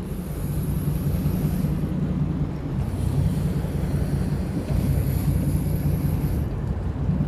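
Fishing boat's engine running with a steady low drone, with wind buffeting the microphone. A faint thin high hiss comes in twice for a couple of seconds each time.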